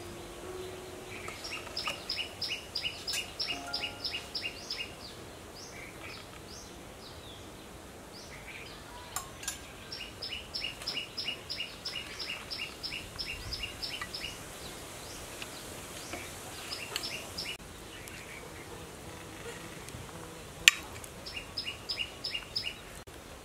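A bird calling in quick runs of short, even chirps, several a second, each run lasting a few seconds with pauses between, over a steady outdoor background. One sharp click sounds near the end.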